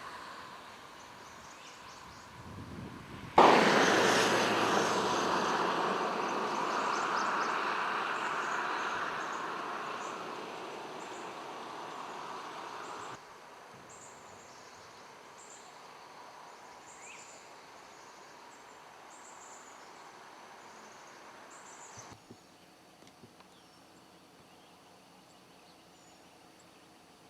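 Outdoor ambience. A loud rushing noise starts suddenly a few seconds in, fades slowly and cuts off abruptly about halfway through. A quieter background follows, with faint short bird chirps.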